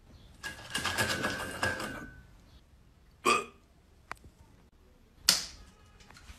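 A plush toy rustling as it is waved about, then a few separate short thuds and clicks on a wooden parquet floor.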